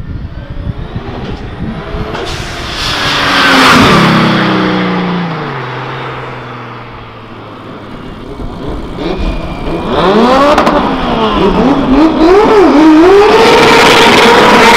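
A turbocharged VR6 engine in a tuned car accelerates hard past, getting louder and then dropping in pitch as it goes away. After that, engines are revved up and down in quick sweeps and then held at high revs.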